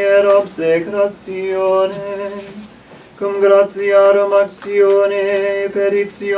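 A man's voice chanting Latin plainchant unaccompanied, holding mostly one reciting note through long phrases, with short breaks and a longer pause about halfway through.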